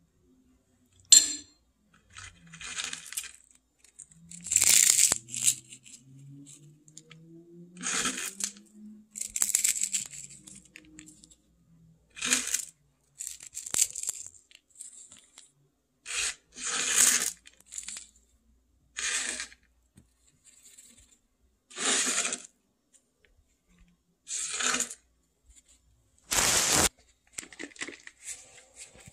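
Crispy fried topping crushed and crumbled by hand over tacos: about a dozen short crackling bursts, roughly every two seconds.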